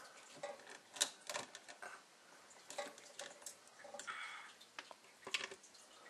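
Faint, irregular clicks and light scrapes of a plastic wire nut being twisted onto electrical wires and the wires being handled at a metal ceiling electrical box.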